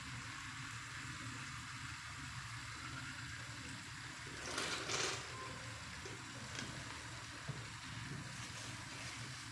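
Water-cooling loop pump running with a steady low hum and a faint hiss of circulating water, during a flushing and leak-test run of the freshly filled loop. A brief louder noise comes about halfway through.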